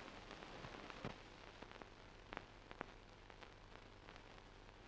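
Near silence: the faint steady hiss of an old film soundtrack, broken by a few scattered crackles.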